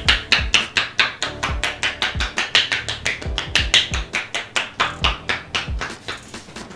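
Prayer-hands tapotement massage: palms pressed together strike the shoulder area through a towel in quick, even taps, about five or six a second. Soft background music plays underneath.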